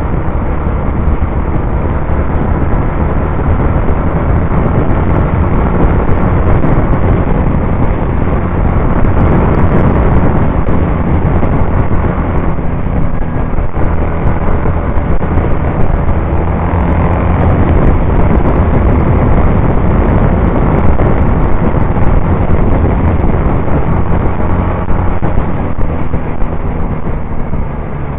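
Onboard sound of a Norton Commando 850's air-cooled parallel-twin engine running under way, its note rising and falling with the throttle, mixed with wind rushing over the microphone.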